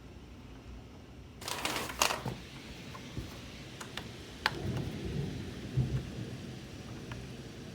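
Thunder over steady rain: a sudden sharp crack about a second and a half in, then a low rumble a few seconds later.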